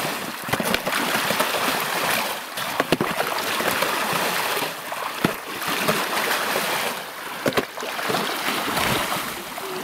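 A shovel blade sweeping back and forth through water and slush in a long channel cut in ice, sloshing and splashing the water along, with scattered knocks and clicks.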